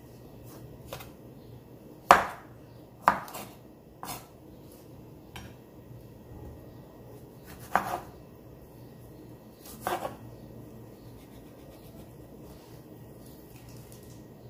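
A kitchen knife cutting frozen cassava on a wooden cutting board: a few sharp knocks of the blade hitting the board, spread out and irregular, the loudest about two seconds in.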